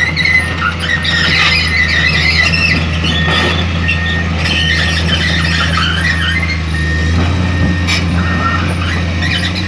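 Komatsu PC210 excavator's diesel engine running steadily at working speed, with irregular high squealing and squeaking from the machine as it works.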